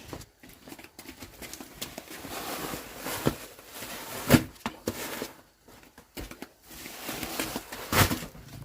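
Rustling and handling noise with scattered knocks, the two loudest about four and eight seconds in.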